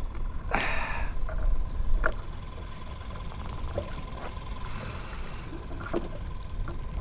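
Small waves lapping against a kayak hull with wind rumbling on the microphone, and a short scuffling burst under a second in while a caught snook is handled.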